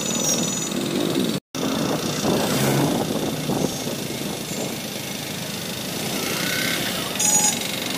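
Motorcycle riding in street traffic: a steady mix of engine and road noise, with a brief total dropout about a second and a half in and a short high-pitched beeping near the end.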